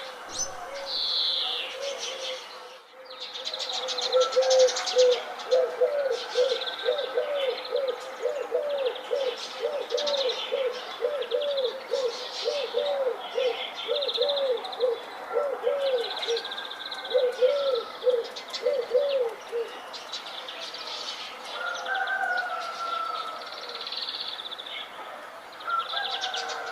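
Songbirds chirping and trilling as a morning chorus, with a low cooing note repeated about twice a second through much of it before stopping near the end.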